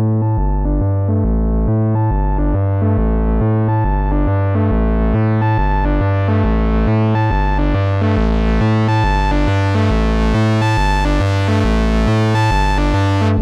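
Moog Subharmonicon analog synthesizer playing a sequenced pattern: a deep bass line stepping between notes about twice a second under a layered upper sequence. The tone grows steadily brighter from about four seconds in, as the filter opens.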